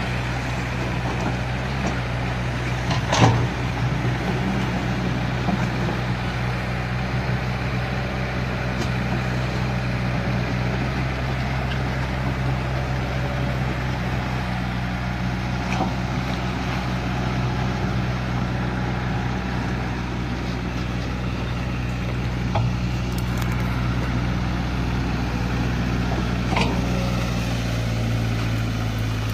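Hitachi Zaxis 110MF excavator's diesel engine running steadily, with a few sharp knocks from the work, the loudest about three seconds in.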